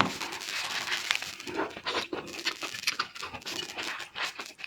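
Close-up eating sounds of raw shrimp: shells crackling and tearing as they are peeled, with wet chewing and sucking in irregular clicks.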